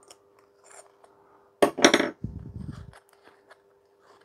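Light metal clicks of an adjustable wrench on a brass nut in a lamp's die-cast zinc top. About halfway through comes a loud metallic clatter and low knocking as the wrench is put down on the wooden workbench, then faint clicks as the loosened nut is turned by hand.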